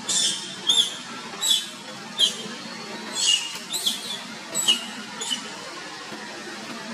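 A juvenile macaque screaming in a run of about eight short, high-pitched squeals over some six seconds, several dropping in pitch at the end.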